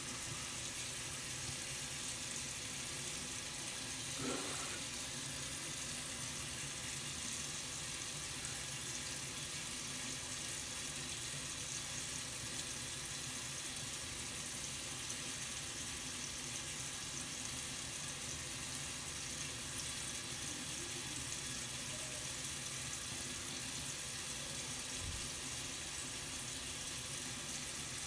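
Steady hiss of water running from a bathroom sink tap, with one faint brief sound about four seconds in.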